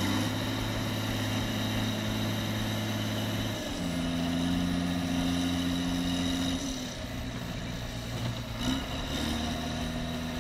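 John Deere 4455 tractor's six-cylinder diesel engine running steadily under load while the tractor is stuck in mud. Its note shifts about a third of the way in, eases off a little later and picks up again near the end as the revs change.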